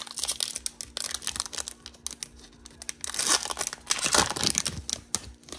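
Plastic wrapper of a Topps Merlin soccer card pack being torn open and crinkled in the hands, a dense run of crackles that is loudest about three to five seconds in.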